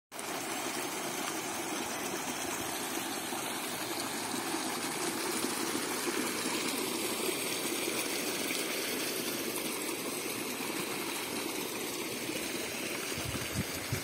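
Irrigation water gushing from a pipe into a small outlet tank and rushing steadily along an earthen field channel. A few low bumps near the end.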